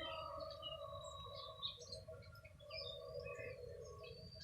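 Several birds chirping and calling in short, scattered notes over a steady low hum.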